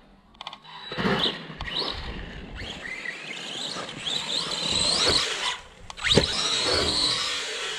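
Arrma Big Rock electric RC monster truck driving hard: its electric motor whines and climbs in pitch as it accelerates. There are sharp thumps about a second in and again about six seconds in.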